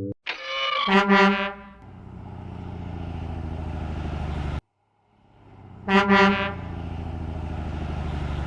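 Garbage truck sound effect: two short horn honks followed by a steady engine hum. After a brief gap the hum rises again and two more honks sound.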